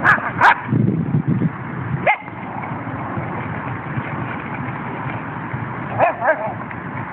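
Jack Russell terrier barking and yipping while it plays in a puddle. Two sharp barks come at the start, a single short yip about two seconds in, and a quick run of three or four yips around six seconds, over a steady background rush.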